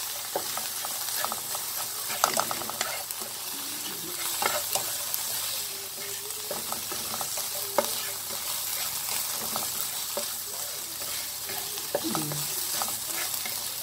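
Diced vegetables and sliced fish cake sizzling in oil in a frying pan, stirred with a spatula that scrapes and clacks against the pan.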